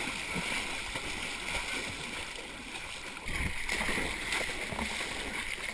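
Floodwater splashing and sloshing over a steady rush of moving water, getting louder about three seconds in.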